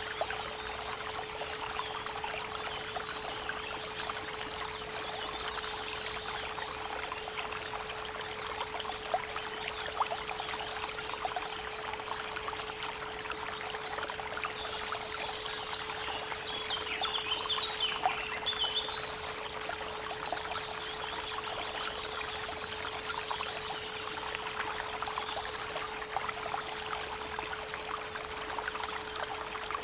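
Creek water babbling steadily, with birds chirping now and then, most in a cluster a little past the middle, over a steady 432 Hz pure tone.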